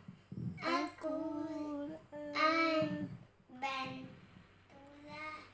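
A young boy chanting a prayer in a melodic, sing-song voice, in several long held phrases with short breaths between them.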